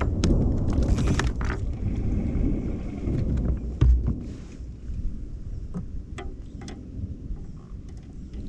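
A low rumble, loudest over the first four seconds and easing after, with scattered knocks and clicks from gear being handled in a plastic kayak.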